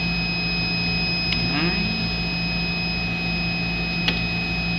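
Steady whirring hum of laboratory equipment, with two thin high whines held steady over it. Two short sharp clicks, one about a second in and a louder one about four seconds in, fit a mouse or keyboard being used.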